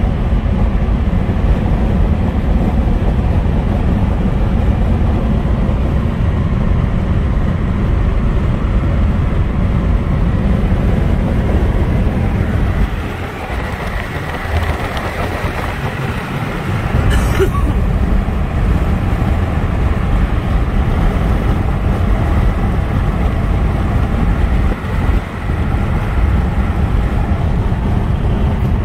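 Steady road and engine noise inside a car's cabin at highway speed, mostly a deep rumble. The rumble eases for a few seconds about halfway through, and a single sharp click comes just after.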